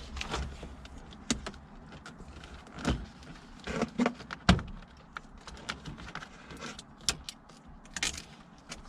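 Hands pulling wiring and plastic trim about inside a car's dashboard: irregular clicks, rattles and knocks, the loudest about four and a half seconds in.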